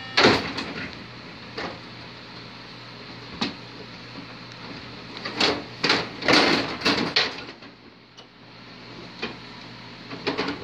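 Carrom Super Stick dome hockey table in play: control rods sliding and clacking, and plastic players knocking the puck around the rink. Scattered single knocks, with a quick run of clacks about halfway through.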